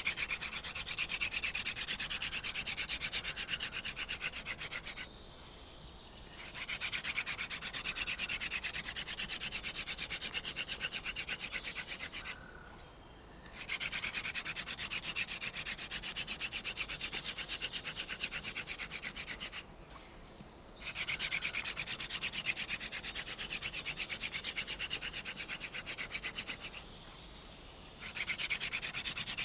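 Wooden hand-drill spindle spun back and forth between the palms, its tip rubbing in the notch of a fireboard to make a fire by friction. It gives a fast, rhythmic rasping in runs of five or six seconds, broken by four short pauses.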